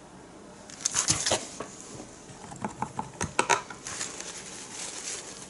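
Quick clicks and light clatter of small painting tools being handled and set down, in two short clusters about one and three seconds in.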